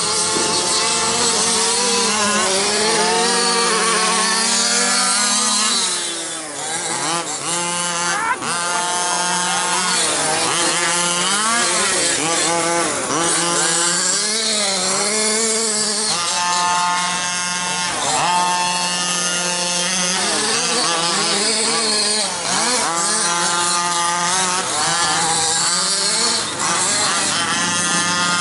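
Small two-stroke petrol engines of 1/5-scale RC cars racing, revving up and dropping back again and again as they speed up and brake around the track.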